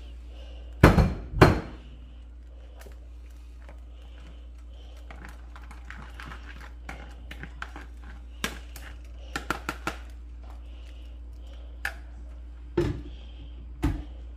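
A strainer bowl knocking against a stainless steel pan of mole: two loud knocks about a second in and two more near the end, with lighter clicks and taps between. A steady low hum runs underneath.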